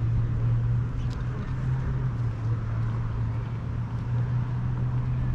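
A steady low hum over even outdoor background noise.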